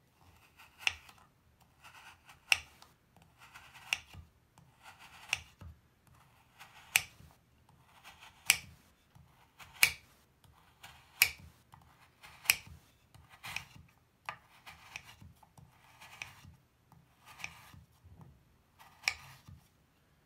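Chef's knife slicing thin slabs off a pressed, powdery Lush bubble bar, about fourteen slices one every second and a half. Each slice is a short scrape through the bar ending in a sharp tap as the blade meets the marble-and-wood cutting board.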